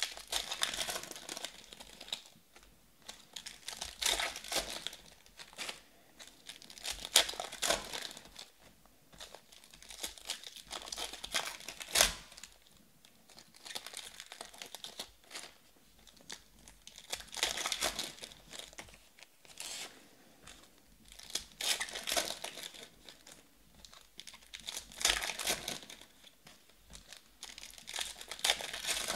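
Foil trading-card pack wrappers being torn open and crinkled by hand, in repeated crackly bursts every few seconds, with one sharp snap about twelve seconds in.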